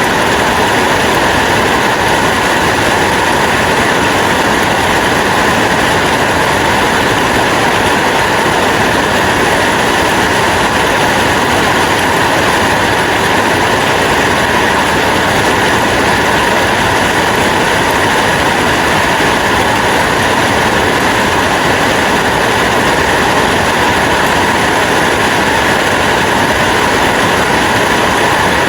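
Rain falling steadily: an even, unbroken hiss with no pauses or separate drops standing out.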